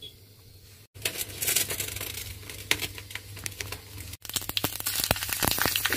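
Pressure cooker of boiling rice and vegetables on the stove, crackling and spitting as it builds steam: a dense run of crackles over a hiss, louder after a brief break about four seconds in.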